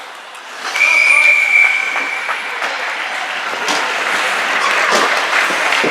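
A referee's whistle blows once, a steady shrill note of about a second near the start. It is followed by crowd noise in the rink, with scattered knocks of sticks and puck.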